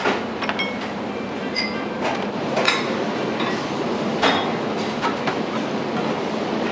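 Restaurant kitchen being cleaned up: a steady rushing noise with scattered clinks and knocks, about half a dozen, the sharpest about two and a half and four seconds in.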